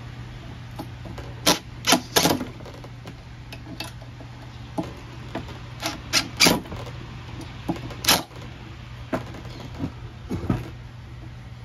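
Sharp clicks and knocks from a metal turbine cabinet and hand tools being handled on a wooden workbench: about a dozen, with clusters around two seconds in and six seconds in and single ones near eight and ten seconds. A steady low hum runs underneath.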